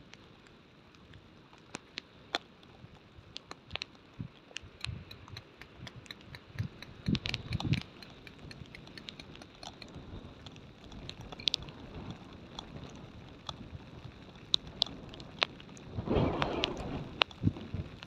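Scattered light knocks, clicks and rustles of a person handling a dome tent, working at its corner and guy line on grass, with a longer, louder rustle near the end.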